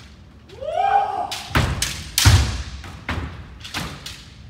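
A kendo kiai shout that rises and falls about a second in, then a quick run of sharp cracks and thuds: bamboo shinai striking armour and feet stamping on the wooden floor, the loudest a heavy thud about two seconds in.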